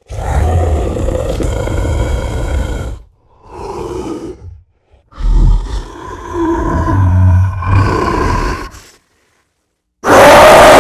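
Frankenstein's monster sound effect: a long monster roar, a shorter growl, then a longer growling roar with grunts. A very loud roar starts near the end.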